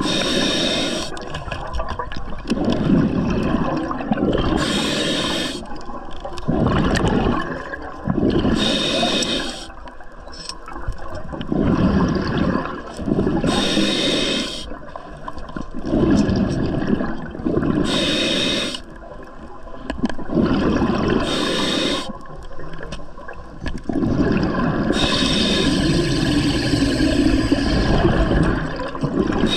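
Scuba diver breathing through a regulator underwater. A hiss on each inhale alternates with a rush of exhaled bubbles, one breath about every four seconds.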